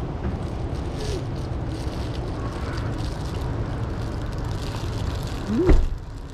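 Steady low outdoor rumble. About five and a half seconds in, a short pitched sound rises and falls, the loudest moment.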